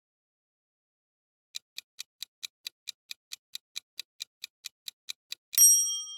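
Quiz countdown-timer sound effect: a clock ticking steadily, about four or five ticks a second, ending in a bright bell-like ding near the end.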